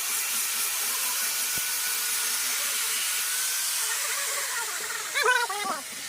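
A handheld power tool running steadily on wood, with a strong even hiss and a faint steady whine. Near the end, a few short rising-and-falling pitched sounds come in over it.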